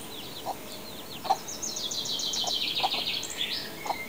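Chickens clucking in short, scattered notes, with high chirps and a fast trill of small birds above them through the middle.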